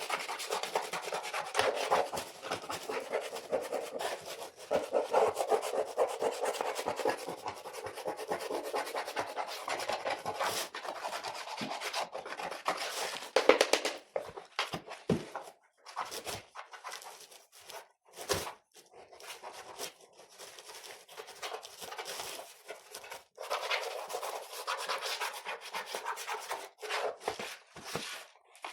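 Scrubbing and rubbing strokes on a computer keyboard being cleaned. The scrubbing is dense for the first half, gives way in the middle to a quieter stretch of scattered clicks and taps, then resumes.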